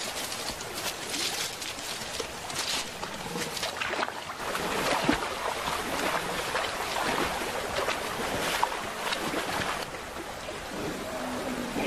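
A shallow river running over stones, with splashing as a European bison wades through the water; the splashing grows louder about four seconds in.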